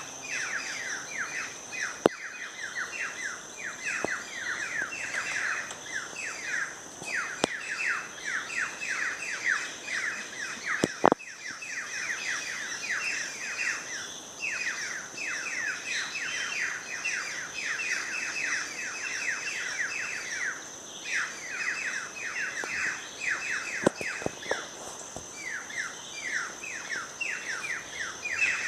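Birds chirping in long, nearly unbroken runs of short falling notes, several a second, over a steady high-pitched tone, with a few sharp clicks.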